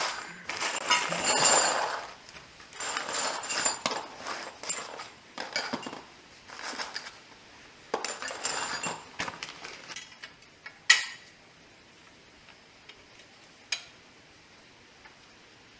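Steel brackets and loose bolts clinking and rattling against each other as they are handled, in several short bursts over the first ten seconds, then two single sharp metallic clicks.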